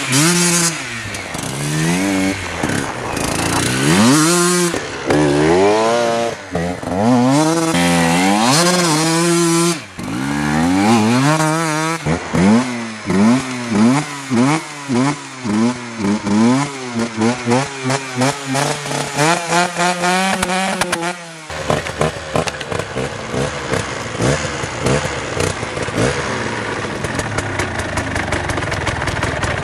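Koshine 150 two-stroke enduro bike engine revved hard up and down over and over while the rear wheel spins on the snow, finding little grip on stock tyres. About two-thirds of the way through the revving stops and the engine runs steadily at idle.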